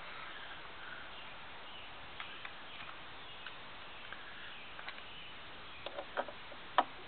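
Quiet background with faint chirps, then a few short, sharp clicks and knocks from hand work on the bolted wooden frame near the end, the last one the loudest.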